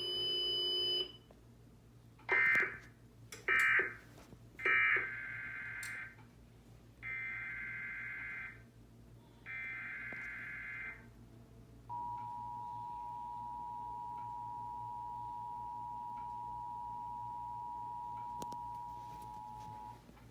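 Emergency Alert System signalling: three short screeching digital data bursts (SAME/AFSK, the end-of-message code) come in quick succession, then two longer data bursts of a new header. After that the two-tone EAS attention signal (about 853 and 960 Hz) is held steadily for about eight seconds and then stops.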